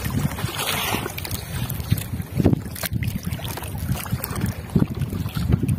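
Water sloshing against a small boat's hull, with low, uneven buffeting and a couple of sharp knocks about two and a half and three seconds in.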